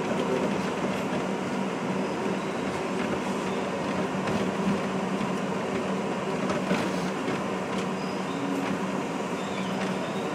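R62A subway train running through the tunnel, heard from inside the car: a steady rumble of wheels on rail with a low hum and a few faint clicks.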